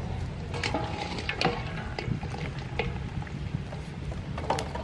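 Boiled oxtail pieces being scooped from the pot with a ladle and dropped into a woven bamboo basket: several wet clatters and knocks at irregular intervals, with a low steady rumble underneath.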